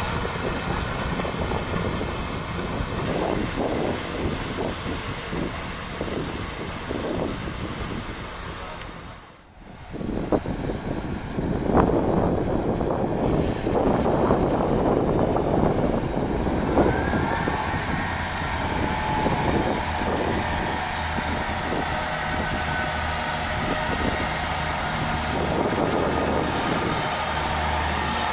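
South Western Railway class 159 diesel multiple unit departing, its underfloor diesel engines running under power. The sound drops out briefly about a third of the way in, and past the middle a whine rises and then holds steady as the train pulls away.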